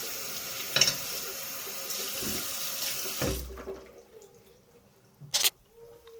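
Bathroom sink tap running steadily, with a brief sharp splash about a second in; the tap is shut off about halfway through with a low thud, followed by near quiet and one short sharp sound near the end.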